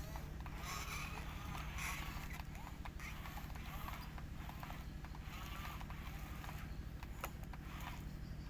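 Heavy diesel engine running steadily at low revs, a constant low hum, with scattered light clatter and a few sharp clicks over it.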